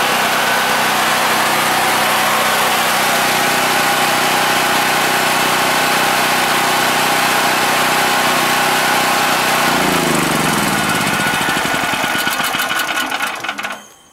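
Yamakoyo SH7000DXE generator's 13 hp single-cylinder engine running steadily on natural gas. About ten seconds in it starts slowing, its pitch falling, and it dies out over about four seconds as the gas supply is shut off at the ball valve.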